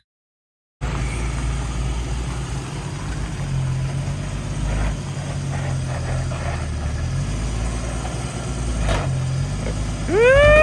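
Jeep engine running steadily with a low rumble during slow off-road trail driving. Near the end a short, loud, rising voice-like call cuts in.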